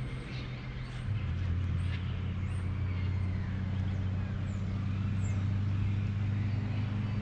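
A steady low engine hum that drops a little in pitch about a second in, with faint high chirps over it.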